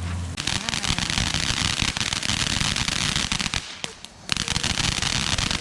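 Fireworks crackling: a rapid, dense run of small sharp pops, with a brief break a little after the middle before the crackling starts again.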